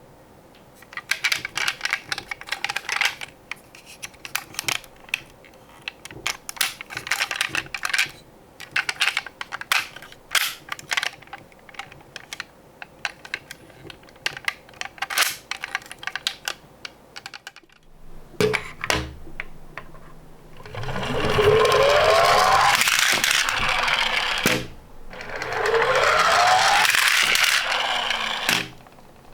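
Tomica die-cast toy cars clicking and clattering against one another. After that, cars run twice down a wooden slope: each time a rushing rumble of wheels on wood lasting about three seconds, its pitch rising as the cars pick up speed.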